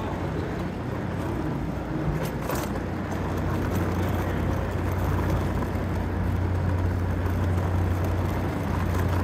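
Steady low hum over a general background din, with a couple of short clicks about two seconds in.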